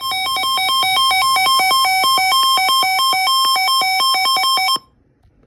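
Loud electronic two-pitch signal that switches rapidly and irregularly between a lower and a higher buzzy tone, like data sent as beeps, cutting off abruptly near the end.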